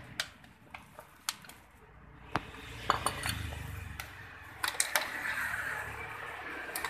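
A run of sharp metallic clinks and knocks as the washed Honda Spacy 110cc cylinder block is handled over a metal tray and set down on concrete, with water dripping off it at first.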